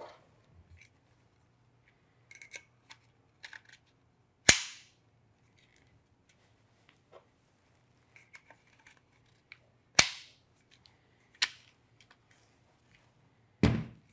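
Loud, sharp clicks of Peak Design ultralight feet snapping into the carbon fibre tripod legs, their spring buttons popping out to lock each foot in place. Four clicks come a few seconds apart, with faint handling rattles of the legs between them. The last click carries a low thump.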